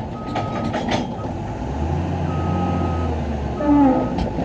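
315 excavator tracking up onto a lowboy trailer deck: its travel alarm sounds in long single-tone beeps over the diesel engine, which loads up and bogs down on the climb, as is usual for this older machine. A few metal clanks come in the first second, and a brief wavering whine near the end is the loudest moment.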